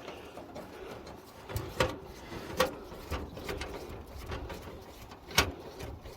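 A few scattered clicks and knocks of a screwdriver and metal parts being handled while a desktop computer case is taken apart, the loudest near the end.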